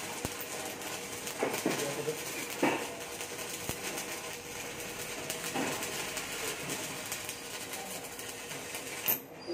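Stick (SMAW) electric arc welding a root pass: the arc crackles and sizzles steadily, then breaks off suddenly shortly before the end.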